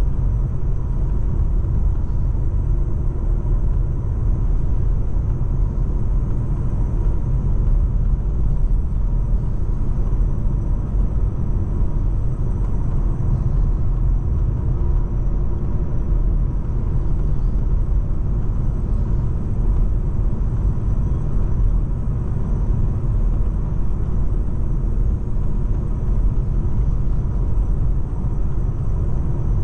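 Volkswagen Golf 7 1.6 TDI's four-cylinder turbodiesel driving at a steady pace: a steady low rumble of engine and road noise.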